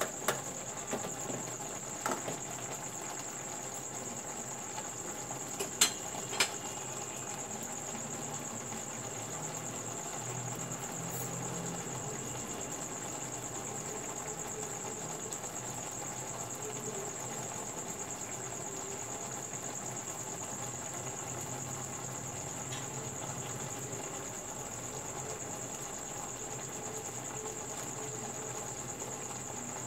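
A few sharp clicks of a plastic spatula against a frying pan in the first seven seconds, the loudest about six seconds in, over a steady high-pitched chirring of the kind crickets make.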